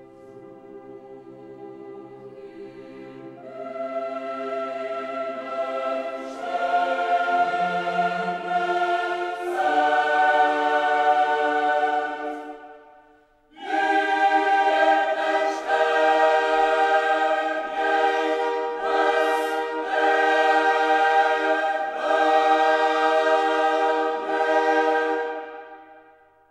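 Background music: a choir singing long held chords in a classical choral piece. It dies away about halfway through, comes back in full at once, then fades out at the end.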